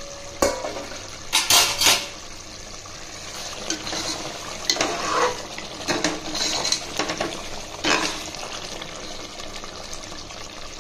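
Spoon knocking and scraping against a cooking pot as oyster mushroom gravy is stirred, with a cluster of clatters in the first two seconds and more spread through the middle.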